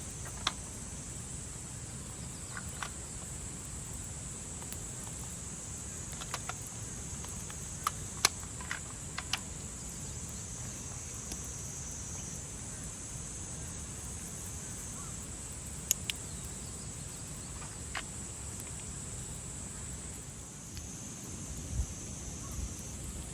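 Steady high-pitched insect drone over a low background rumble, with scattered light clicks and knocks every second or two.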